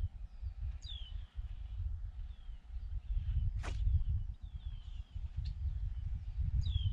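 Wind rumbling on the microphone, with small birds chirping in short falling notes throughout. A single short swish comes about three and a half seconds in.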